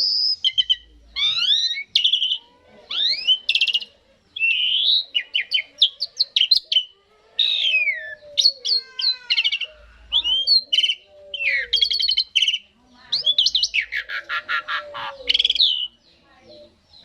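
Asian pied starling (jalak suren) singing a long, varied song of clear whistles, sliding notes and buzzy rattling phrases, broken by short pauses.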